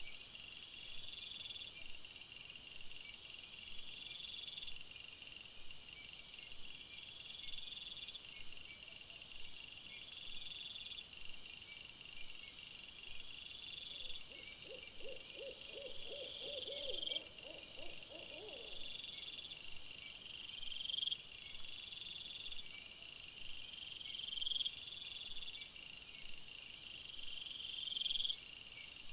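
Crickets chirping in a steady, repeating night chorus of high chirps and trills. About halfway through, a short run of rapid, lower-pitched pulsed calls comes in for a few seconds.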